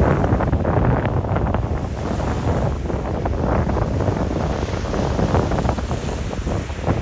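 Wind buffeting the microphone, an uneven rushing noise that rises and falls in gusts.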